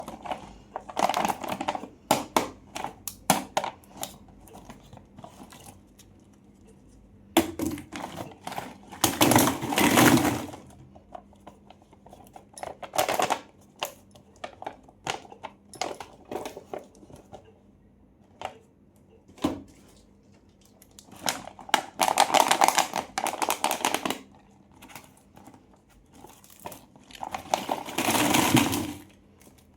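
Plastic and foil candy wrappers being crinkled and torn open by hand: irregular sharp crackles with several longer, louder tearing bursts.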